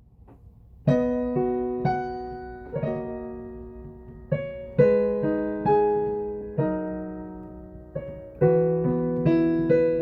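Piano (keyboard) playing a slow intro of struck chords, each ringing and fading before the next, picked up by a phone's built-in microphone.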